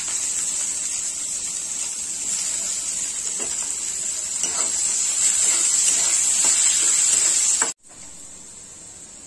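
Sliced onions sizzling in hot oil in a kadai, with a few light scrapes of the spatula. Near the end the sizzle drops suddenly to a much quieter frying hiss.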